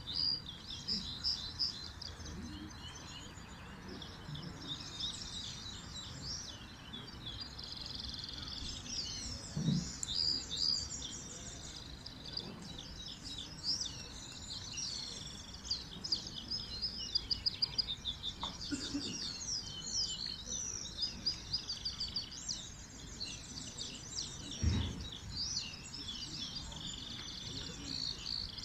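Several caged songbirds singing at once, a continuous overlapping stream of rapid high twitters and trills. A couple of low thuds stand out, about ten seconds in and near the end.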